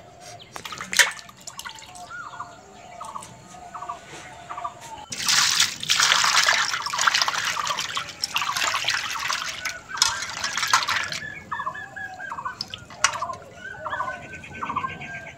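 Water pouring and splashing for about six seconds, starting about five seconds in, as when food is washed by hand. Birds chirp repeatedly, short calls over and over.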